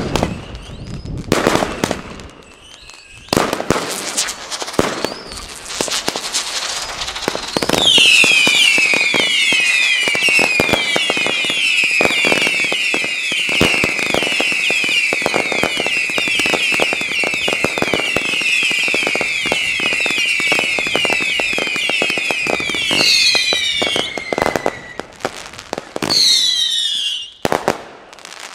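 Category 2 consumer firework cakes firing. The first seconds are pops and crackling. From about eight seconds in comes a long run of many overlapping whistling shots, each whistle falling in pitch, with sharp pops all through. A few separate falling whistles follow near the end.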